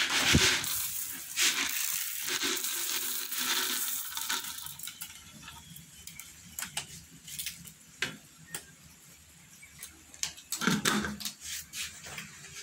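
Dry cat kibble scattered onto a tile floor, followed by several cats eating it, the pellets crunching and clicking against the tiles in many small ticks. A short, louder sound comes about eleven seconds in.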